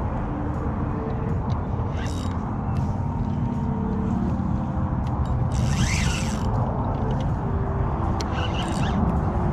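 A spinning reel being wound against a hooked red drum, under a steady low rumble, with three short hissing bursts about two, six and nine seconds in.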